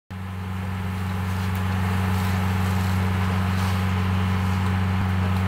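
A motor running steadily with a constant low hum, over an even hiss, fading in during the first second.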